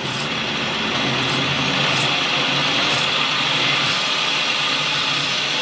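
Countertop blender motor running steadily at full speed, puréeing a liquid mixture of cooked chicken livers, butter and cream.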